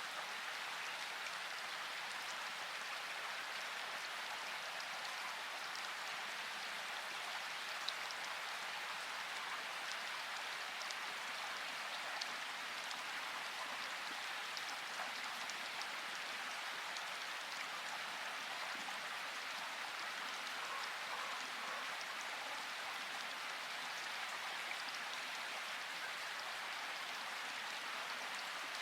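Steady rainfall, an even hiss with scattered individual drops ticking through it.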